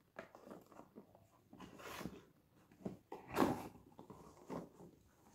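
A cardboard product box being opened and its contents handled: irregular rustling and scraping, with sharper scrapes about two seconds and three and a half seconds in.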